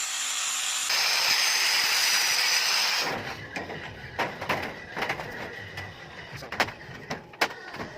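A power tool with an abrasive disc cuts or grinds steel, making a loud, steady hiss with a high whine for about three seconds, then stops abruptly. After that come scattered sharp knocks and clicks of metal pieces being handled.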